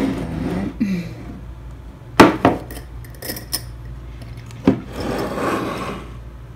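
A clip-top glass jar being opened: two sharp clacks from the wire clasp and glass lid about two seconds in, a few lighter clicks after, then a soft scraping rub as the lid is swung up.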